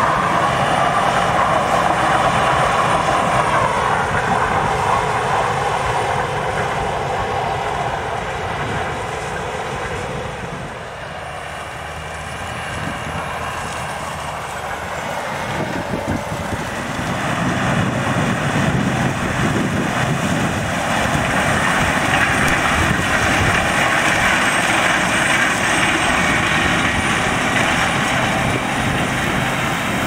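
Heavy farm machinery running steadily in a harvested corn field: a tractor hauling a loaded grain trailer, with a steady whine in the first few seconds. After a quieter stretch, the noise builds from about halfway through as a Claas Lexion 770 combine harvester with a corn picker header comes closer.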